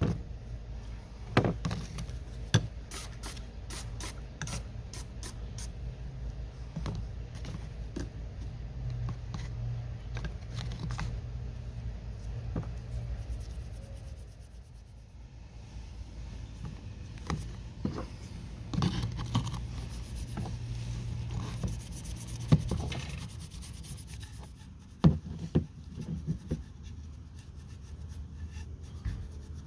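Hand cleaning of oily motorcycle exhaust parts: irregular rubbing and scraping, with scattered sharp knocks and clicks as the parts are handled, over a steady low hum.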